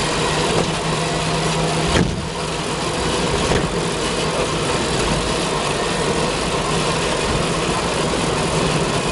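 Steady driving noise heard from inside the cabin of a moving Twike electric three-wheeler, with a single knock about two seconds in.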